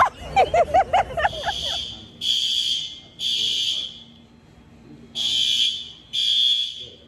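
Building fire alarm sounding its evacuation signal as high, steady beeps: three beeps, a pause, then two more. It starts after about a second of rapid warbling chirps.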